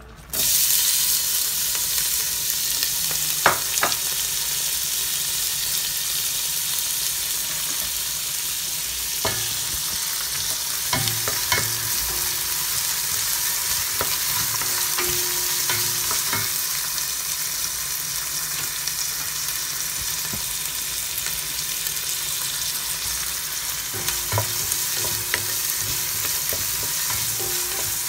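Chopped onion, garlic and chilli sizzling in hot oil in a stainless steel pot: the sizzle starts suddenly as the aromatics go in and then holds steady while they are sautéed. A wooden spoon stirs through them, knocking against the pot now and then.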